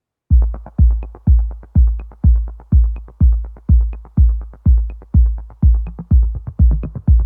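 Electronic background music: after a brief silence, a deep drum-machine kick drum beats steadily about twice a second, with a faint tick about once a second.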